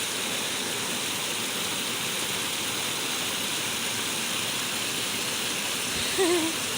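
Steady rush of running water at an even level. About six seconds in, a short wavering voice-like sound rises above it.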